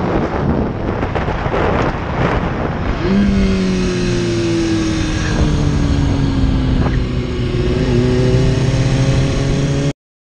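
Sport motorcycle engine running at road speed under heavy wind rush on the helmet microphone; from about three seconds in the engine note holds steady and slowly drops in pitch as the bike eases off. The sound cuts off abruptly just before the end.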